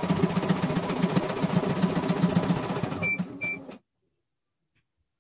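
CNY E900 computerised embroidery machine stitching lettering at a fast, even stitch rate. About three seconds in it gives two short beeps and the sound stops.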